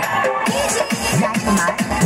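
Loud electronic dance music played over loudspeakers, with a heavy bass beat that comes in about half a second in and then pounds about twice a second.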